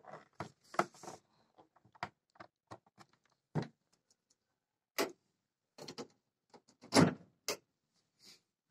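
Scattered short clicks and knocks of handling and moving about, with a sharp click about five seconds in and a louder knock about seven seconds in.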